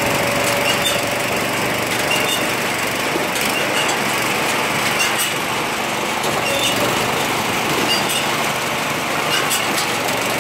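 Small petrol engine running steadily, driving a hydraulic log splitter and its chain conveyor, with sharp cracks and knocks of firewood being split and the pieces clattering onto the conveyor several times.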